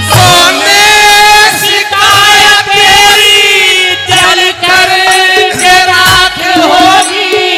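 Haryanvi ragni sung live by male voices through microphones and a PA, long held notes that waver in pitch, over the music of the accompanying group.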